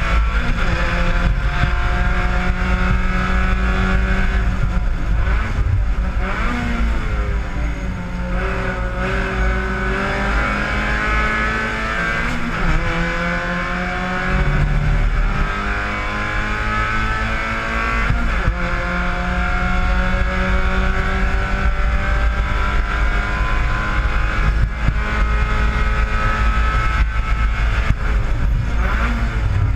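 Spec Miata race car's four-cylinder engine pulling hard, heard from inside the cockpit. Its pitch climbs slowly and drops back sharply a few times, then holds high and steady near the end.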